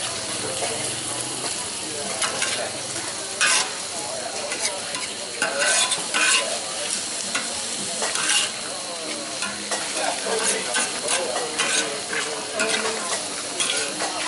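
A metal spatula scrapes and turns sliced onions on a hot flat-top griddle, in irregular strokes. Under it runs a steady sizzle of onions and pork sausages frying.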